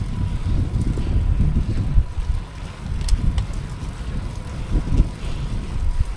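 Wind buffeting the microphone on a moving bicycle: an uneven low rumble that rises and falls, with a few faint clicks.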